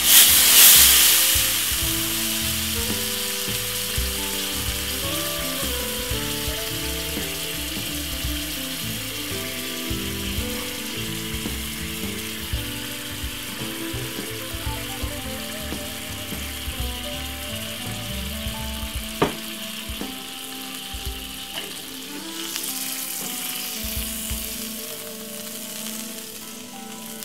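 Chocolate pancake batter and oil sizzling in a hot non-stick frying pan. The sizzle is loudest just at the start and eases off gradually. Faint background music plays under it.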